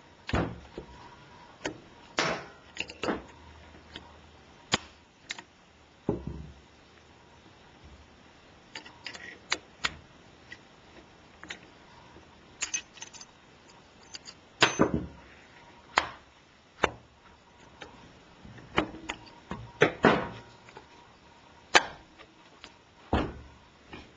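Irregular clicks and knocks of small parts and hand tools being handled and set down during a workbench repair, a few louder knocks among many light ones.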